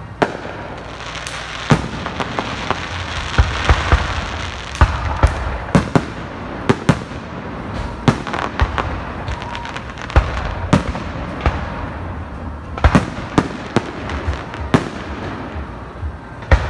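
Fireworks display: aerial shells bursting in a rapid, irregular series of sharp bangs, some only a fraction of a second apart.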